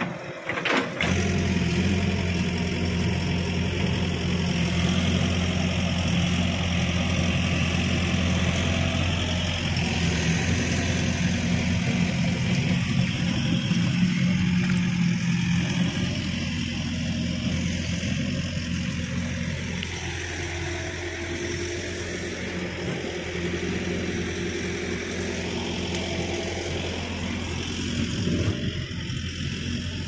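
Excavator's diesel engine running steadily with a low, even hum. The hum starts abruptly about a second in, after a short click.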